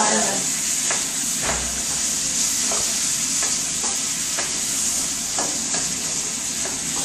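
Fresh tomatoes and garlic sizzling in hot olive oil in a frying pan, a steady high sizzle, with the stirring utensil scraping and knocking against the pan every half-second or so.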